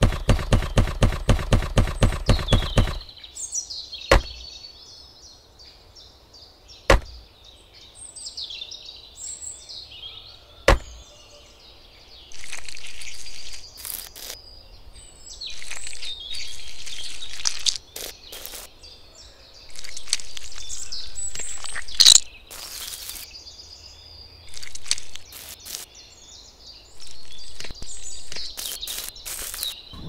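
A small mason's trowel scrapes and spreads wet mortar over miniature bricks in several separate bursts of a second or two, with a few sharp clicks in between. Faint bird chirps run underneath.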